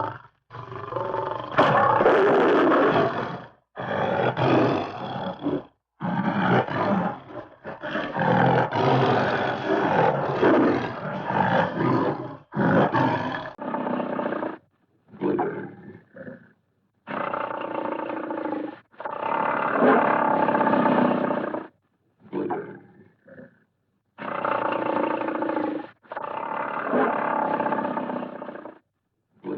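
A string of Hanna-Barbera cartoon roar sound effects played one after another: about a dozen separate roars, each lasting from under a second to a few seconds and cut off sharply, with short silent gaps between them.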